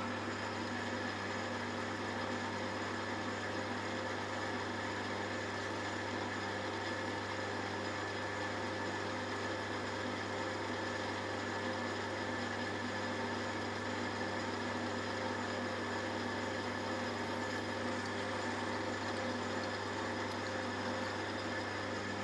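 Metalworking lathe running at a steady speed: a constant motor and gear hum with several steady whining tones over it, even in level throughout.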